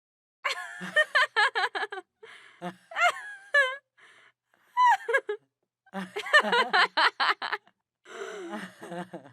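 Two women laughing in several bursts, each a quick run of ha-ha pulses about five a second, the pitch sliding up and down.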